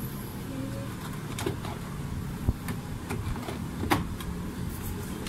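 Haier automatic washing machine running with a steady low hum, with a few sharp clicks.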